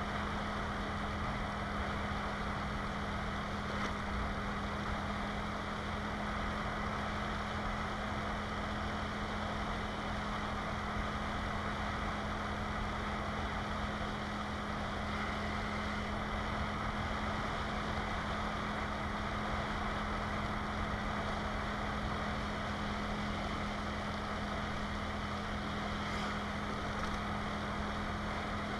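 Motorcycle running at a steady cruising speed: an even engine drone with a constant pitch and road noise, picked up by an action camera's microphone on the moving bike.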